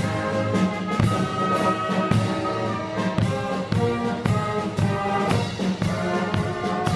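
Brass band playing: tubas, horns and clarinets carry the tune over a steady beat of bass drum and clashed hand cymbals.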